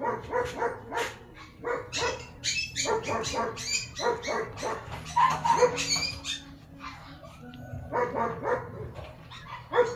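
Newborn Shih Tzu puppies squeaking and whimpering in short, irregular high cries.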